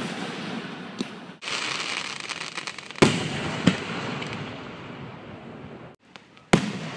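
Aerial fireworks shells bursting: a small bang about a second in, a sharp boom about three seconds in followed quickly by another, and a last boom near the end, each dying away slowly. Dense crackling fills the stretch before the big boom.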